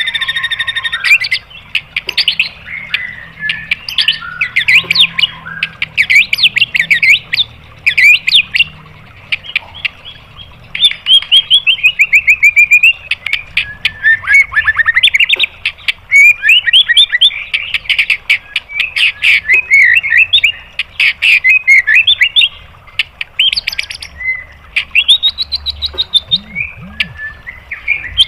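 White-rumped shama singing a fast, varied song: runs of rapid chattering notes and short whistled sweeps, broken by brief pauses. It opens with a held, buzzy note that lasts about a second.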